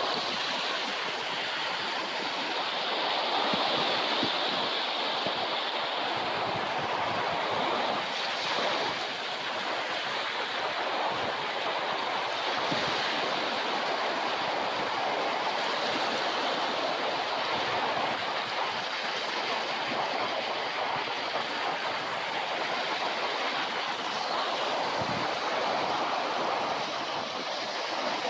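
Ocean surf washing onto a beach: a steady, continuous rush of breaking waves with gentle swells in loudness.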